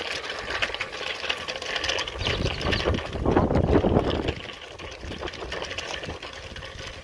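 Wind buffeting the microphone, heaviest about three to four seconds in, over a light, fast clicking rattle.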